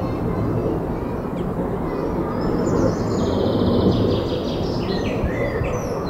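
Small birds calling and singing, with a fast trill in the middle, over a steady low rumble.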